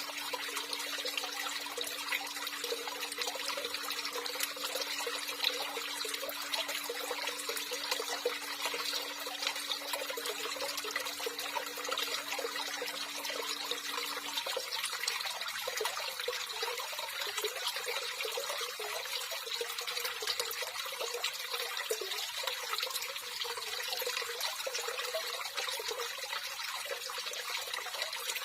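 Water running steadily, an even, unbroken flow. A faint steady low hum underneath cuts off about halfway through.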